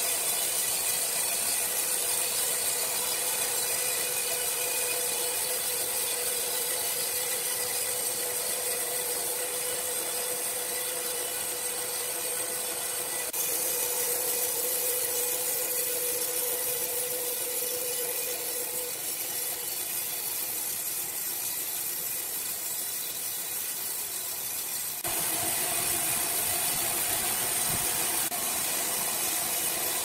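A large horizontal band sawmill running, its band blade cutting lengthwise through a big log: a steady, hissing sawing noise over a steady hum from the machine. The sound shifts abruptly about 13 seconds in and again about 25 seconds in.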